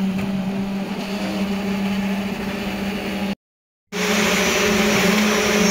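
Steady motor hum from poker-type concrete vibrators working in wet concrete, mixed with the general noise of the pour. The hum cuts out completely for about half a second a little past halfway, then carries on.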